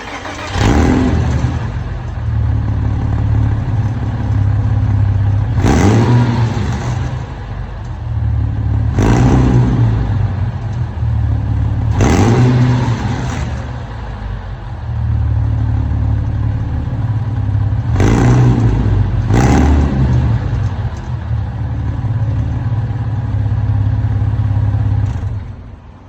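Porsche Boxster 986 S's 3.2-litre flat-six running just after starting, revved sharply about six times over the idle. The sound falls away a second or so before the end.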